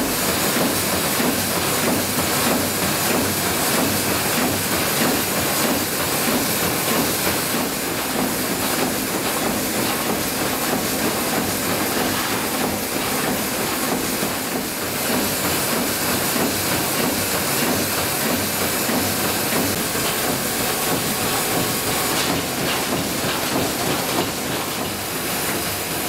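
Steam tug S.S. Styrbjörn's 1910 Götaverken reciprocating steam engine running steadily in its engine room, with a continuous hiss of steam.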